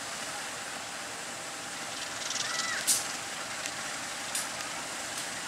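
Diesel-electric locomotive standing with its engine idling, a steady mechanical hum. A short hiss rises about two seconds in and ends in one sharp click, with a softer click a little later.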